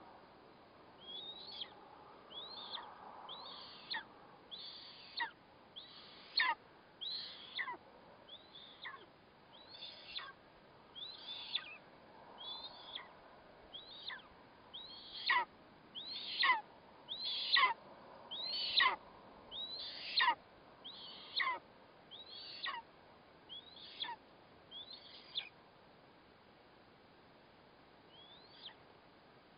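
Eastern imperial eagle chick calling to beg for food: a long run of high calls that slide sharply downward, about one a second, louder in the middle of the run, then a pause and one last call near the end.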